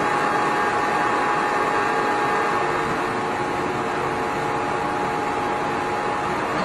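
Large heavy-duty lathe running with its big four-jaw faceplate chuck spinning: a steady mechanical whir with a faint steady whine in it.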